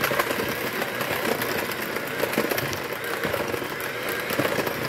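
Oster electric hand mixer running steadily, its beaters turning in flour in a stainless steel bowl, with a few short clicks over the motor's whir.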